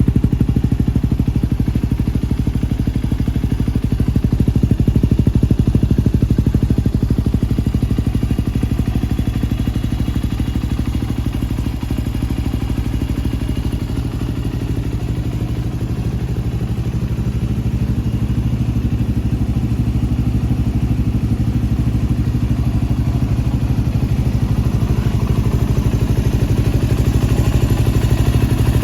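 Yamaha WR250X's single-cylinder four-stroke engine running steadily through an aftermarket FMF silencer and SP Tadao Power Box exhaust pipe, with no revving.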